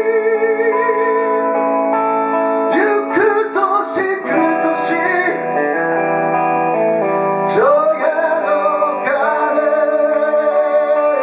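Live band performance: a singer's voice over guitar, singing the Japanese version of a Christmas song. Several sung notes carry vibrato, and a long note is held from about two-thirds of the way in to the end.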